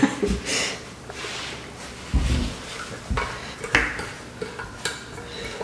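Metal corkscrew grinding and scraping in a hard plastic supplement tub as it is twisted and tugged, with scattered clicks and a few dull thumps. The screw does not tear the plastic open.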